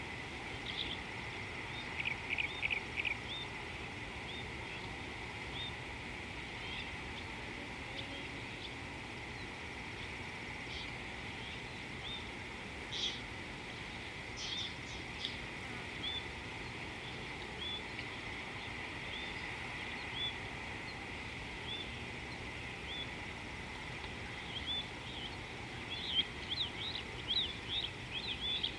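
Wild birds calling in bushland: one bird repeats a short rising chirp about once a second or so, with a quick run of notes about two seconds in and a flurry of fast chirps near the end, over a steady background hiss.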